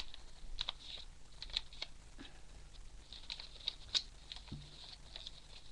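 Sheet of origami paper rustling and crackling in irregular little ticks as it is folded and creased by hand.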